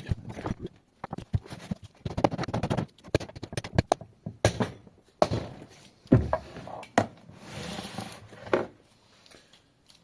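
Irregular knocks, clicks and short scrapes of tools on the Subaru WRX five-speed gearbox case as its halves are worked apart.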